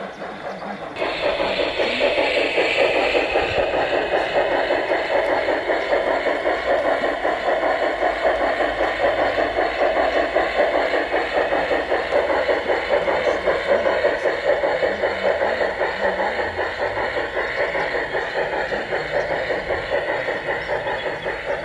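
Garden-scale model of an RhB steam tank locomotive running with its sound unit chuffing rapidly and steadily. The chuffing starts abruptly about a second in.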